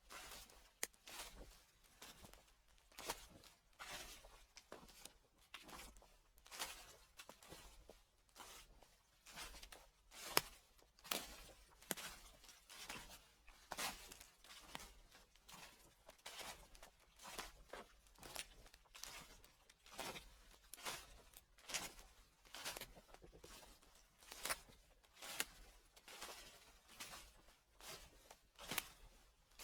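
Footsteps crunching through dry fallen leaves at a steady walking pace, about one crackling step a second.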